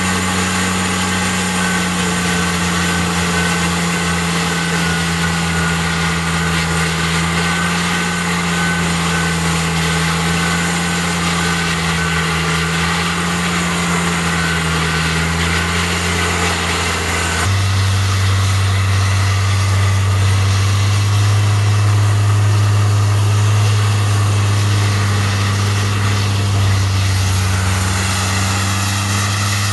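Peterson 5710C horizontal grinder running at work grinding wood waste, a loud, steady engine drone. About two-thirds through, the sound changes abruptly to a louder, deeper drone.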